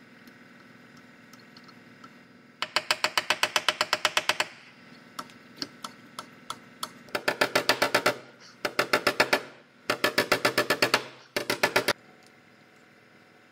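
A ratchet on a glue-pull bridge dent puller clicking in five quick runs of about eight clicks a second as it is cranked tight, pulling glued tabs to draw a dent out of an aluminum door panel.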